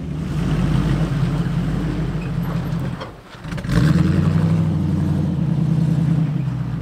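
1974 Jeep Cherokee's carbureted engine running steadily as it drives up a dirt trail, dipping briefly about three seconds in before picking up again.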